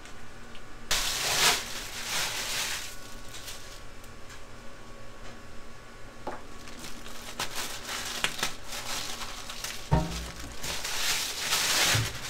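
A plastic bag crinkling while ground meat is pushed out of it into a stainless-steel paddle mixer, in uneven rustling bursts with scattered clicks. There is a dull thump about ten seconds in.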